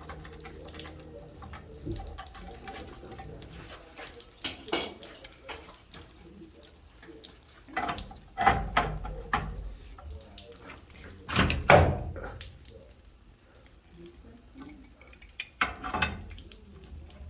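Intermittent metal clanks, knocks and scraping from a monkey wrench being adjusted and worked against a water heater's gas line fitting, in four short bursts with quieter handling between.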